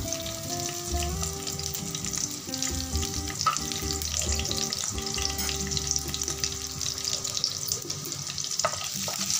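Chopped garlic sizzling steadily in hot oil in a frying pan, with a dense fine crackle.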